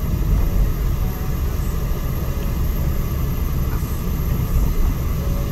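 Volkswagen up! with its 1.0-litre three-cylinder engine driving slowly, heard from inside the cabin: a steady low rumble of engine and road noise.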